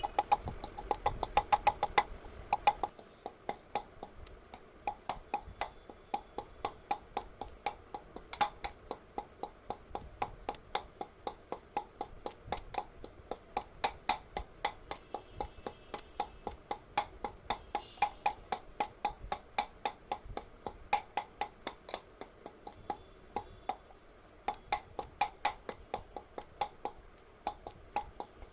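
Mustard seeds being pounded into powder with a pestle: a steady run of sharp knocks, about three to four a second, as the pestle strikes the seeds in the mortar.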